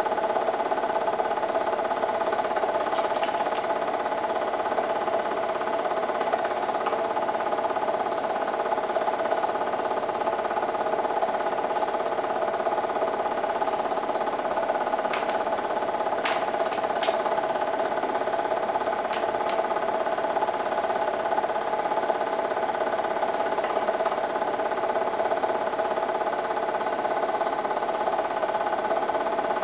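8mm film projector running steadily, a constant mechanical whir from its motor and film-advance mechanism, with a few faint clicks past the middle.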